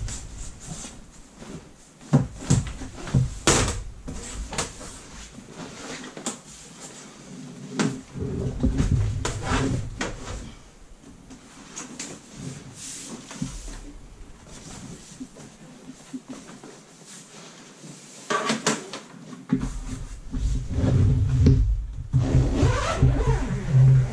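Avid Carp Quick Up Session Organiser, a pop-up fabric tackle cabinet with a metal frame and hard trays, being handled and set up: irregular clicks and knocks from the frame and trays.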